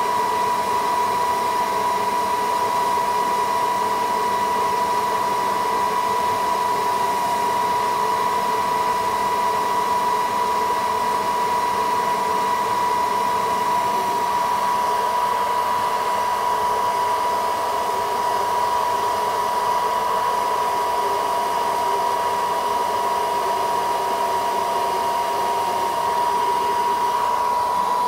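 Hot-air blower running steadily, a constant rush of air with a high whine, warming the back glass of a phone to soften its adhesive before it is opened.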